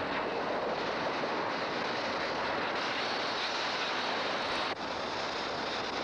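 Cartoon sound effect of a heated model globe cracking open and venting steam and smoke: a continuous rushing noise that briefly drops out near the end and then carries on.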